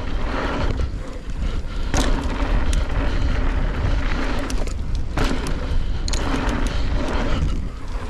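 Mountain bike ridden fast over dirt jumps: wind buffeting the camera microphone in a steady low rumble, tyres rolling and scrubbing on packed dirt, and repeated sharp clicks and rattles from the bike over the jumps.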